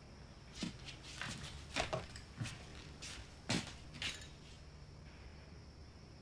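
About ten light knocks and clicks at irregular intervals, stopping after about four seconds.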